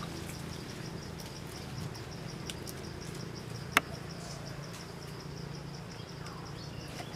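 Insects chirping in a steady, evenly pulsing trill, over a low steady hum. A single sharp click about four seconds in stands out as the loudest sound.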